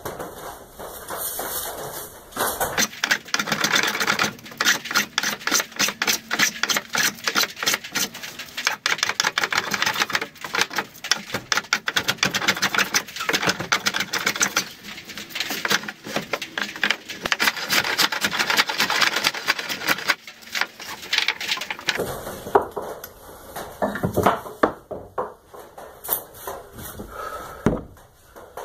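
Woodworking hand tools cutting into a wooden board: a fast, dense run of sharp knocks and scrapes, several a second, thinning out about three quarters of the way through.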